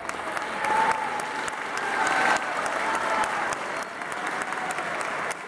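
Audience applauding, with a few voices calling out over the clapping.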